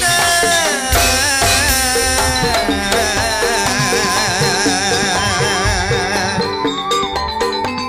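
Loud live music: a man singing a long, wavering melodic line into a microphone over percussion and heavy bass. Sharp, evenly spaced drum strokes come to the fore near the end.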